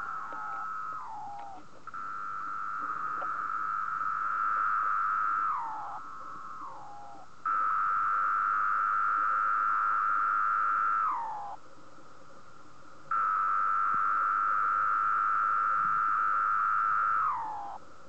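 Male 17-year periodical cicada (Magicicada) singing with its tymbals: a loud, steady buzzing tone held for about four seconds that slides down in pitch at the end. The call comes three times, with the falling tail of another call just at the start.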